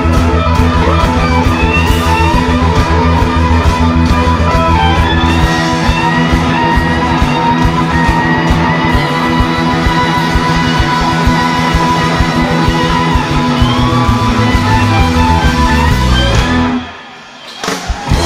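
A live blues-rock band playing, with electric guitars, bass and drums. The music drops out for about a second near the end, then comes back in.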